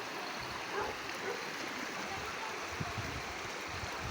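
Stormwater flooding a street, flowing and rushing steadily because the drainage is not carrying it away.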